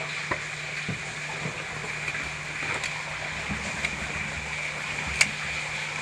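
Metal caving gear on a harness, carabiners and rope devices, clinking in a few sharp clicks, the loudest about five seconds in, over a steady hiss and low hum.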